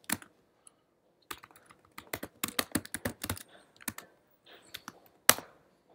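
Typing on a computer keyboard: quick keystrokes in irregular bursts, with one louder key strike near the end.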